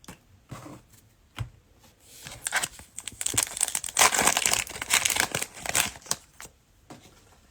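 Plastic cellophane wrapper of a Mosaic basketball cello pack crinkling as it is torn open, with a few light clicks first and dense crackling from about two seconds in until shortly before the end.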